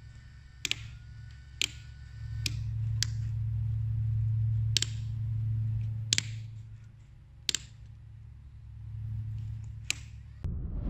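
Sharp clicks of a switch being flipped, about nine spread unevenly, as the headlamps are toggled between low and high beam, over a low hum that swells and fades. A rising whoosh comes in at the very end.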